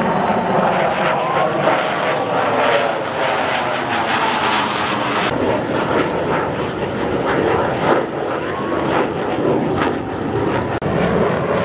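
Fighter jet engine noise from aircraft flying overhead: a loud, continuous rushing roar with a rough crackle running through it. The sound changes abruptly about five seconds in, where one jet pass cuts to another.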